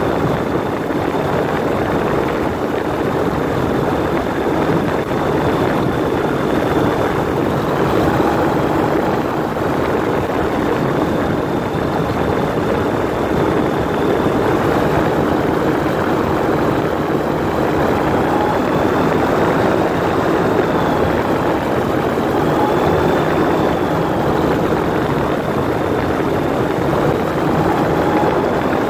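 Rotax 912 four-cylinder engine and pusher propeller of an open-cockpit microlight running steadily in cruise flight, mixed with wind rushing through the open frame.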